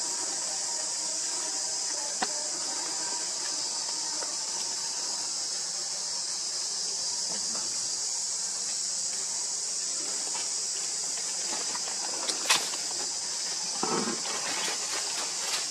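Steady high-pitched chorus of insects. A sharp click comes about two seconds in, and near the end dry leaves rustle with another click as the newborn monkey stirs in the leaf litter.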